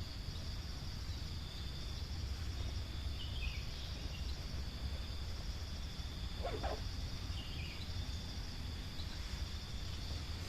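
Steady, high-pitched chorus of insects trilling, over a low rumble, with a few faint bird chirps.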